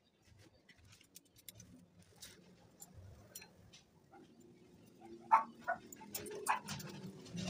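A dog barking several times in quick short barks in the second half. Before that, faint clicks and taps from the antenna's bracket and bolts being handled.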